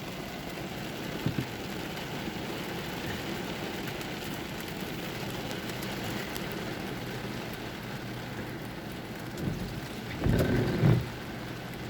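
Heavy rain falling steadily and splashing into deep puddles. About ten seconds in, a louder low rumble lasts for about a second.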